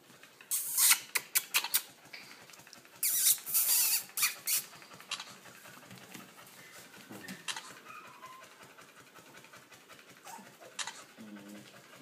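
Puppies scuffling inside a wire dog crate: sharp rattling and scratching in quick bursts about half a second in and again from about three to four and a half seconds, then quieter scrabbling with a few faint squeaks.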